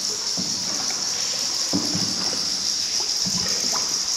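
Water trickling and splashing in a cave, with scattered small drips and splashes, under a steady high-pitched hiss.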